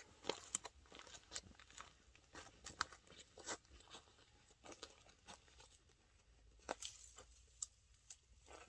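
Faint footsteps crunching and crackling in dry leaves and dead grass, irregular and growing sparser as the walker moves away.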